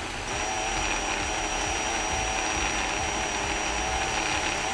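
Electric drill running gently and steadily, its bit boring into a stripped screw head on a motorcycle's front brake master cylinder reservoir cap. The motor's whine wavers slightly in pitch as it cuts.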